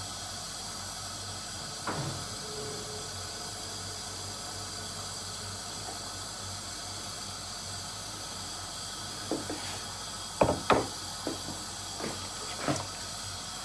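Steady low hiss of a lit gas hob burner under a wok as cooking oil goes in, with a click about two seconds in and a short run of light knocks and clicks of kitchenware in the last few seconds.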